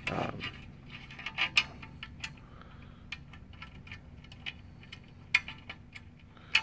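Irregular light clicks and taps of small metal lock parts, a screw and washers, being handled and fitted onto a cam lock, with a few sharper clicks.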